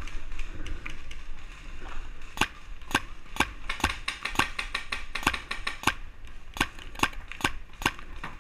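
Paintball markers firing: a rapid, irregular string of sharp pops, starting about two seconds in and coming several to a second.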